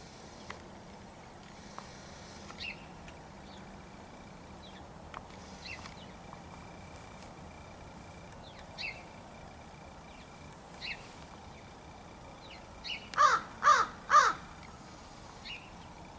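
Crow cawing three times in quick succession, loud and close, near the end. Before that, faint short bird calls every second or two.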